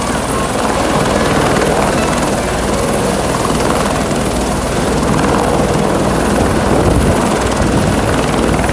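Tour helicopter hovering and setting down close by: loud, steady rotor and turbine noise with a thin high turbine whine, and rotor downwash gusting over the microphone.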